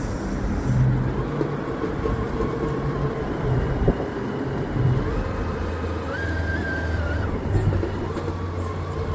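Electric motor and geared drivetrain of an RC rock crawler whining under load as it crawls over rock. A higher whine comes in for about a second and a half, from about six seconds in.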